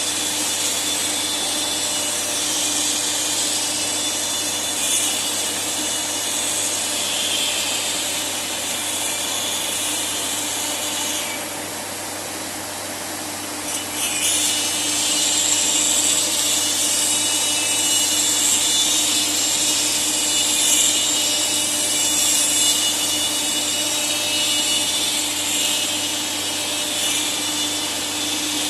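CNC router spindle cutting wood: steady running with high cutting noise over a low steady hum. The cutting noise drops away for a couple of seconds just before the middle, then resumes.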